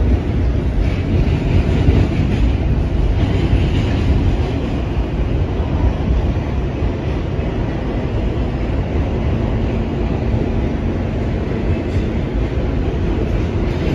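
Subway train running at speed through a tunnel, heard from inside the car: a loud, steady rumble of wheels on the rails. A faint steady hum joins for a few seconds about two-thirds of the way through.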